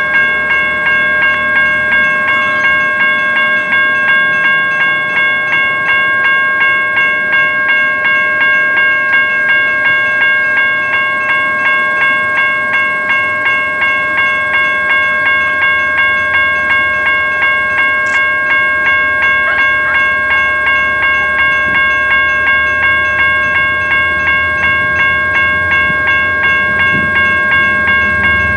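Railroad grade-crossing warning bell ringing over and over at an even pace. A low rumble of the approaching train starts to build near the end.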